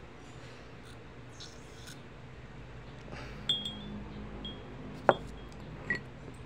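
Small glass vial and syringe being handled: three light clinks with a short glassy ring, the middle one loudest, over faint rustling.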